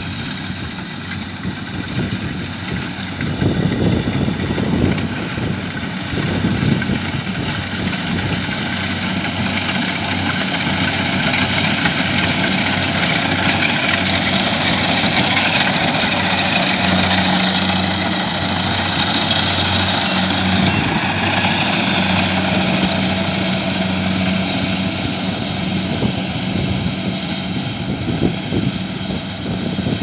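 Kubota DC70Plus rice combine harvester's diesel engine and threshing machinery running steadily as it cuts rice. It grows louder in the middle as the machine comes close, then eases off a little as it moves away.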